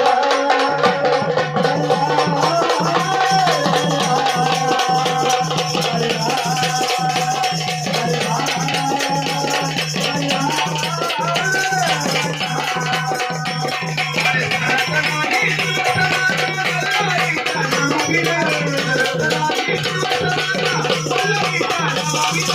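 Instrumental passage of Maharashtrian gondhal folk music: drums and jingling, rattling percussion keep a steady beat over a held low drone, with a melody line moving above.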